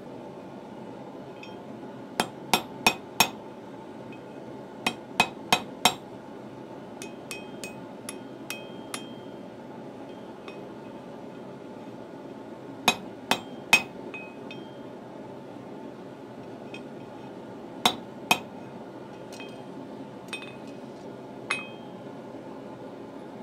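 Hammer striking steel on an anvil in short runs of two to four blows, with lighter taps between and a brief metallic ring after some strikes, over a steady background rush.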